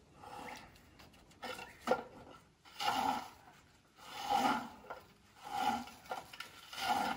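A hand saw cutting wood: six steady rasping strokes, about one every second and a quarter.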